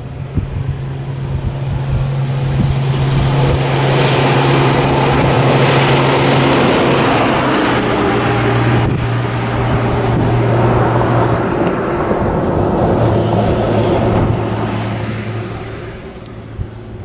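A box truck driving past close by. Its engine hum and tyre noise build up, peak around the middle and fade away as it goes.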